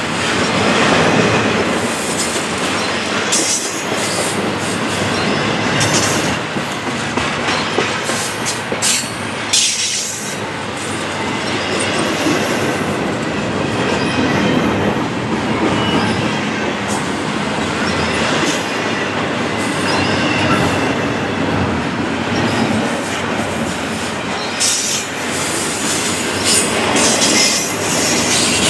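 Cars of a long intermodal freight train rolling past at track speed, a steady rumble with repeated clicks of wheels over rail joints and some high wheel squeal as the train takes the siding.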